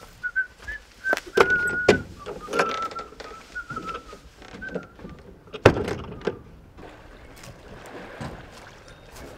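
Someone whistling a short wandering tune while the wooden doors of a boathouse are opened, with several knocks and clacks in the first two seconds and a loud thump a little over five and a half seconds in.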